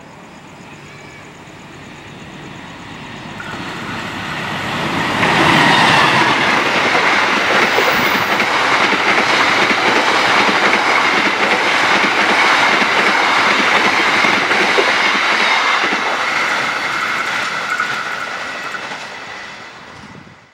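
CC 206 diesel-electric locomotive and its Taksaka passenger coaches passing at speed. The sound builds over the first five seconds as the locomotive approaches, stays loud as the coaches rush by with a steady high ringing tone in the wheel noise, then fades over the last few seconds as the train goes away.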